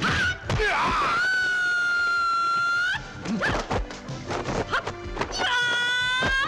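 Kung fu film fight-scene sound: sharp punch and blow impacts, and two long high-pitched yells. The first yell is held almost two seconds; the second comes near the end. Both bend upward as they stop.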